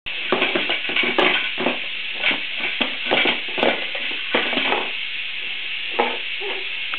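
Irregular rustling, scraping and tapping of a cardboard box as a baby moves about and rummages inside it, with a few sharper clicks, over a steady hiss.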